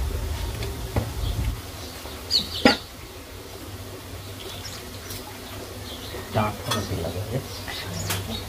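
Scattered light clicks and knocks of a small knife cutting brinjal by hand and of metal kitchen utensils being handled, the sharpest click a couple of seconds in. A low hum fades out about a second and a half in.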